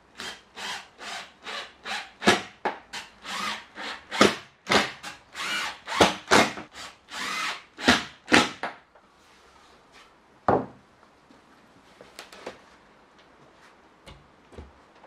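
Cordless drill-driver driving screws into OSB board: about two dozen short bursts in quick succession over the first nine seconds. Then a single thump about ten and a half seconds in, and a few light knocks.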